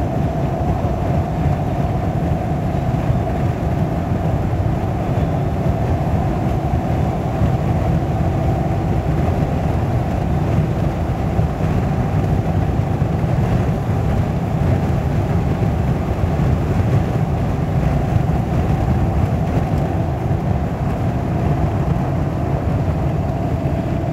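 Steady road and engine noise inside a car's cabin at highway speed: a low, even drone with a constant hum above it.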